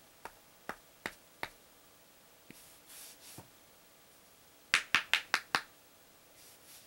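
Sharp hard taps on a work surface while sanding model kit parts: four evenly spaced taps, then a quick run of five louder taps about five a second, with brief faint hisses between.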